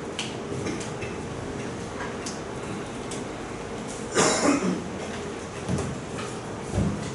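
Steady room hum with scattered light clicks, and a louder clatter about four seconds in followed by two smaller knocks: objects being handled and set down in a quiet room.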